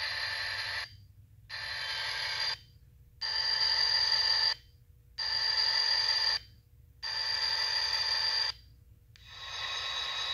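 Sound-equipped model Union Pacific diesel locomotive sounding its multi-note air horn from its small onboard speaker while standing still. The blasts come one after another, each about a second long with short gaps between them: one ends just under a second in, four full blasts follow, and another starts near the end.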